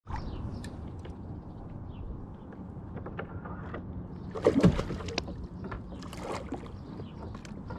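Small knocks and clicks on a fishing kayak over a steady low wash of water and outdoor noise, with one louder bump a little past halfway.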